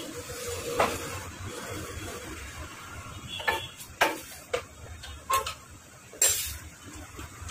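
Scattered sharp clinks and knocks, about six of them, as a motorcycle's front mudguard is unbolted and worked off the front fork. The handling uses metal tools and parts. The last sound, a little after six seconds, is a short scrape.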